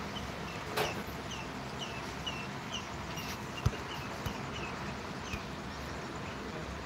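A small bird chirping over and over, short hooked notes a few times a second, over a steady low rumble. A single sharp knock sounds about three and a half seconds in.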